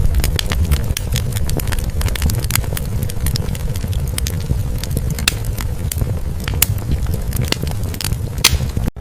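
Wood fire in a fireplace crackling, with frequent irregular sharp pops and snaps over a steady low rumble of the burning logs. The sound cuts out for an instant near the end.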